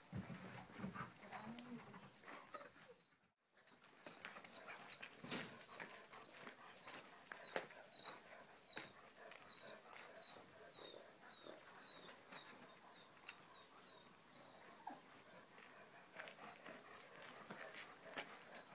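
Faint sound of dogs moving about on a dirt yard, with scattered light clicks and scuffs of paws. Through much of it a short high chirp that falls in pitch repeats about twice a second, and the sound cuts out completely for a moment about three seconds in.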